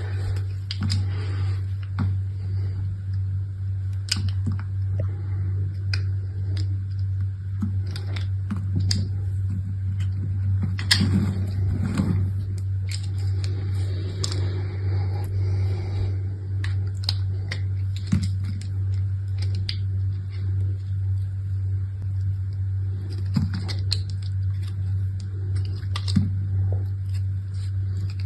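Soap packaging being handled and unwrapped by hand: scattered light clicks, taps and rustles, with a busier stretch about eleven seconds in, over a steady low hum.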